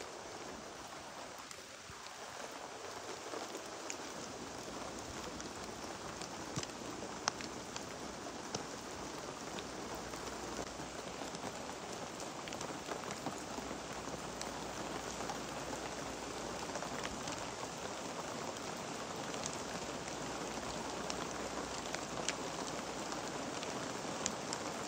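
Heavy rain falling steadily: a dense hiss with scattered sharper drop taps, growing a little louder over the first few seconds.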